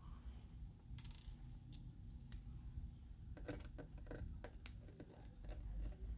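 Small screws being backed out of a laptop's screen brackets with a Phillips screwdriver: faint scattered clicks and scrapes, with a quicker run of ticks in the middle.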